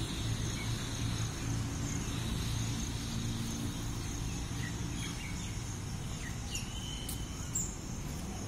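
A steady high-pitched drone of insects with a few short bird chirps, over a continuous low rumble.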